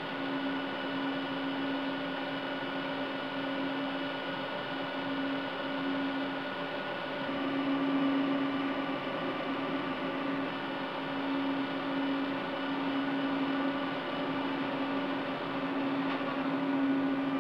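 Cisco Catalyst 5509 switch chassis running, its cooling fans giving a steady whir with a low hum that swells and fades slightly.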